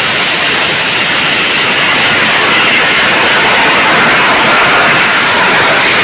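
Bang fai lan, a large Isan black-powder rocket, launching: its motor gives a loud, steady rushing noise that holds without letup.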